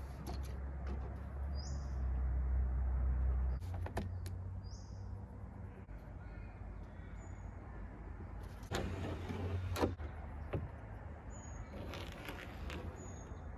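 Handling noises: a few sharp knocks and clicks, with a low rumble in the first few seconds and a bird chirping a few times.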